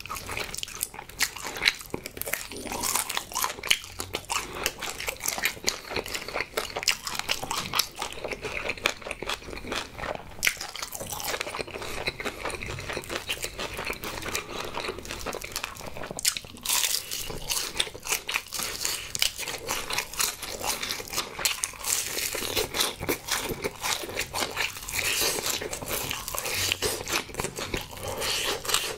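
Close-miked biting, crunching and chewing of crispy fried honey chicken drumsticks: a dense, continuous run of crackly crunches.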